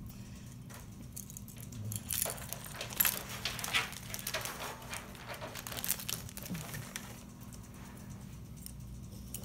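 Plastic zip-top bags crinkling and small metal locks and keys clinking as they are handled, a busy run of light rustles and clicks in the middle of the stretch.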